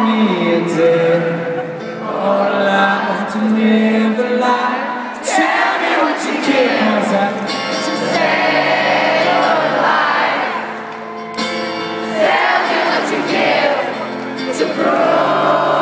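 Live rock song performed by a solo singer with a guitar, heard through an arena's PA from within the audience. Many voices join in on the melody, typical of the crowd singing along.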